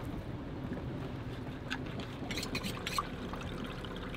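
Water trickling steadily from a running deck hose, with a few light clicks about two to three seconds in.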